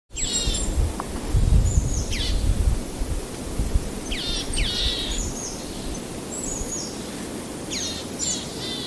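Birds singing over steady outdoor background noise. Short groups of high chirps sweep downward, a few seconds apart, above a low continuous rumble.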